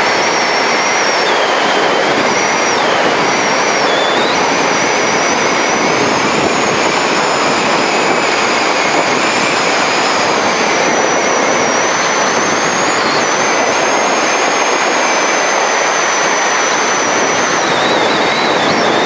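Wind rushing over the microphone of a camera on a mountain bike descending a paved road at over 60 km/h: a loud, steady roar with a thin, high whistle that wavers in pitch and breaks off now and then.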